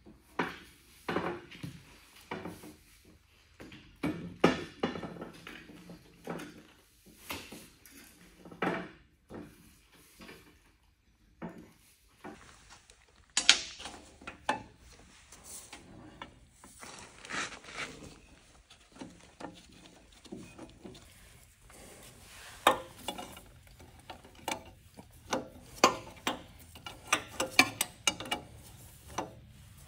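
Irregular metallic clinks, knocks and scraping of hand tools and parts at the base of a two-post car lift's hydraulic cylinder as it is refitted.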